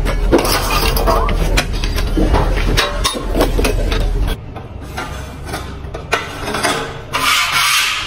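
Steel bars and wire being handled, clinking and knocking many times, over a steady low hum that cuts off suddenly about four seconds in. Scattered clicks follow, then a short scraping rasp near the end.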